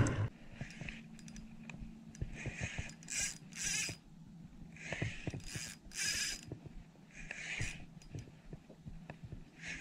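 Spinning reel's drag slipping in several short buzzing bursts as a hooked fish pulls line off an ultralight outfit.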